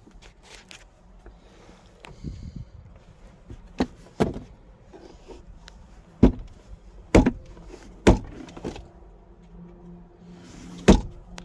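A car's doors and interior panels being handled: about six sharp clunks and knocks over several seconds, with a low rumble a couple of seconds in.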